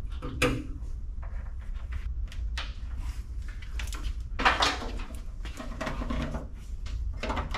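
Handling noise from a wiring harness in plastic loom being pushed into place against sheet metal: rustling with scattered clicks and knocks, the loudest about four and a half seconds in, over a steady low hum.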